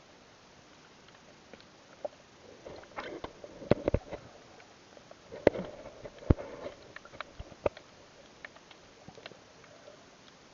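Irregular sharp clicks and knocks with a muffled rustling, heard underwater through an action camera's waterproof housing. The clicks cluster in the middle stretch, with a few loud knocks, and thin out towards the end.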